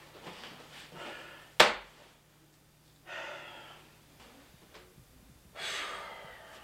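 A single sharp knock about a second and a half in, much the loudest sound, followed by two short breathy rushes of noise like heavy exhales, one about three seconds in and one near the end.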